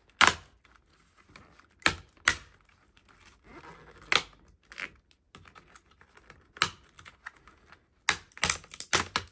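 Metal keyboard backing plate of an HP EliteBook 835 G7 being pried up from the top case, giving sharp cracks and snaps as it bends and tears free, with a quick run of snaps near the end. The sound is of the plate being bent out of shape, which does not sound good.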